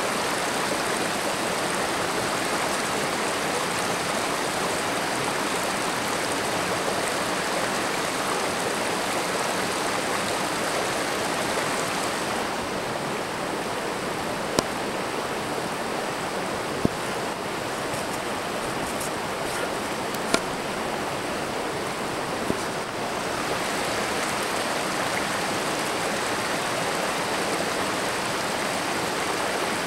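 Steady rushing of a shallow creek running over boulders. For about ten seconds in the middle it is a little quieter and duller, with a few sharp clicks.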